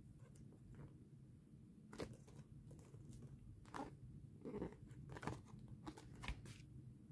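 Faint paper rustling and crackling as a paperback manga volume is handled, opened and its pages turned: a handful of short, separate crackles, mostly in the second half.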